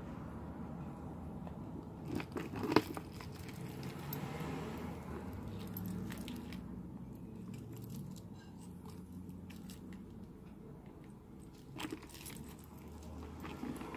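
A bunch of small metal charms and beads clinking and jangling as it is handled, with scattered sharp clicks, the loudest a little under three seconds in and another near the end.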